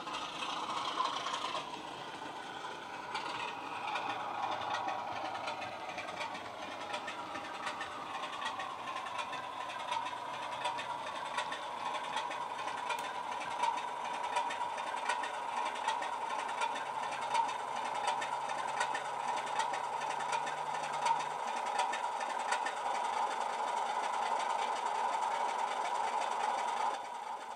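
Heljan Class 33 model's DCC sound decoder playing a diesel engine through a 27 mm bass-enhanced speaker: the engine note falls over the first few seconds, then runs steadily as the loco pulls its wagons, with many light clicks throughout. The sound drops away about a second before the end.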